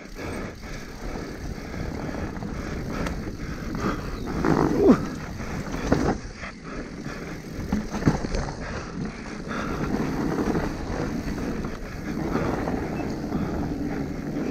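Mountain bike descending a rough dirt and rock trail at race pace: continuous tyre noise on dirt with frequent knocks and rattles from the bike over rocks and bumps, the loudest hit about five seconds in.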